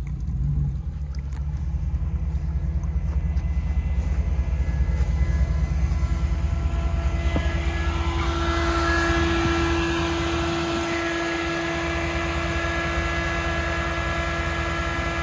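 Lifted Toyota 4Runner's engine running steadily, a low rumble. About halfway through, a steady whine joins in.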